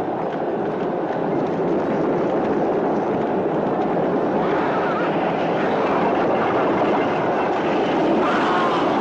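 Film soundtrack of a chariot race: several horse teams galloping, with chariot wheels rumbling over sand, in one dense, continuous rumble that grows a little louder after about two seconds.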